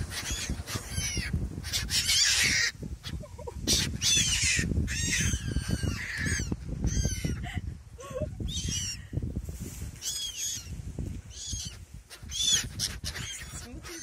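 A flock of black-headed gulls calling, short calls one after another about once a second, over a steady low rumble.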